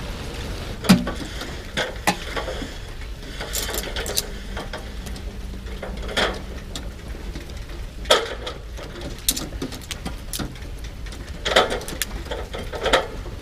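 Scattered sharp knocks and clicks, a few seconds apart, over a steady low rumble.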